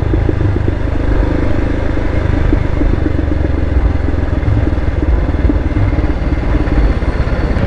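Royal Enfield Himalayan's 411 cc single-cylinder engine running while the bike is ridden, under a steady low rumble of wind and road noise.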